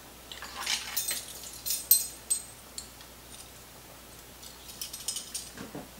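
Quick runs of small clicks and rattles as the screw cap of a small bottle is twisted open, in two spells, the second near the end. A dull knock comes just before the end.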